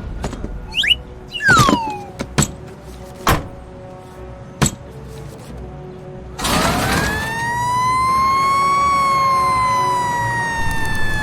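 A few short clicks and quick falling whistle-like glides, then about six seconds in a siren wail starts: it rises steeply and then holds with a slow waver, for fire engines on their way.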